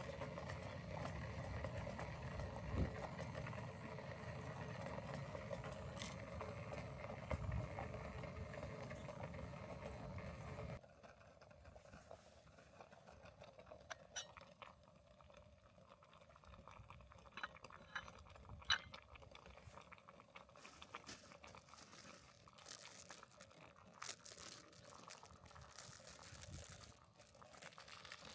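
A steady hum of background noise for about eleven seconds, which cuts off suddenly. Quieter handling of camp gear follows, with a few sharp clinks and taps.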